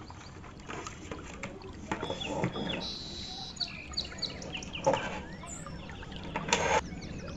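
Birds chirping in the background, with scattered clicks and knocks. A short rustling burst near the end is the loudest sound.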